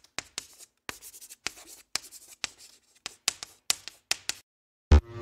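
Chalk scratching on a blackboard in short irregular strokes, as in writing out a line of text. A short thump comes near the end.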